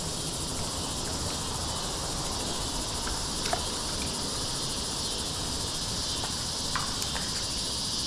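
Steady, high-pitched chorus of insects such as crickets, unbroken throughout, over a faint low rumble.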